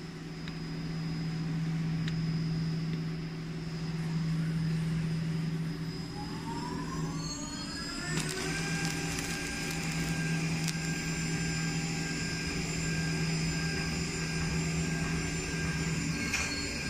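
The high-speed spindle of a small CNC milling machine spins up with a rising whine about six seconds in, then holds a steady high whine. A constant low machine hum runs underneath.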